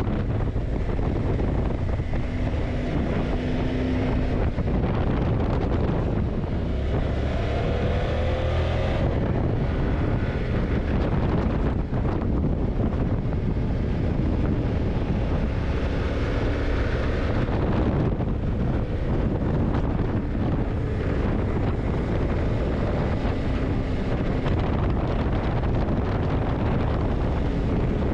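Yamaha TDM900 parallel-twin engine running on the move, under heavy wind rush on the microphone. The engine pitch rises briefly about eight seconds in.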